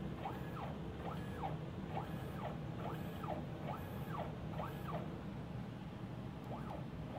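NEMA 23 stepper motor on the CNC's Z axis, driven by a JP382A driver board, jogging in short moves one after another. Each move is a faint whine that rises and then falls in pitch as the motor speeds up and slows down. The moves come in quick succession, then thin out after about five seconds, over a low steady hum.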